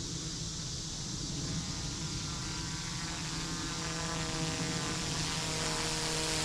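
RC helicopter in flight at high rate: the whine of its motor and rotor, faint at first and growing louder from about two seconds in as it comes nearer.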